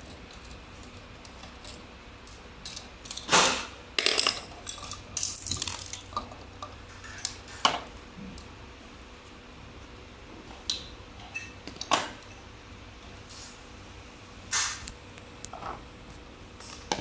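Scattered metallic clicks, taps and clatter of a hex key and metal parts being handled on a folding electric bike's front fork and handlebar stem during assembly. The knocks come irregularly, with a cluster of louder ones about three to four seconds in.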